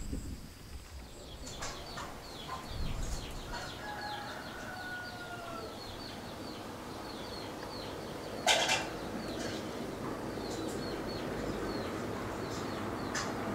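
Farmyard chickens: a rooster crowing in the background, with small birds chirping over and over and one short, loud noise about two-thirds of the way in. Near the end a truck's engine grows louder as it approaches.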